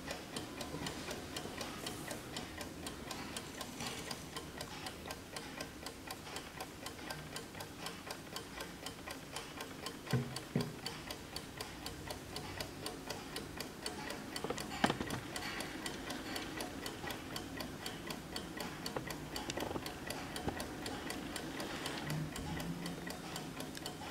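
A 1977 Bayard Mickey Mouse alarm clock's clockwork movement ticking: rapid, even ticks. Two brief knocks, about ten and fifteen seconds in, come as the clock is handled.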